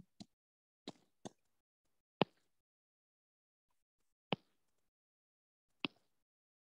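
Stylus tapping on a tablet's glass screen while curves are drawn: about seven short, sharp taps at irregular intervals, the loudest about two seconds in.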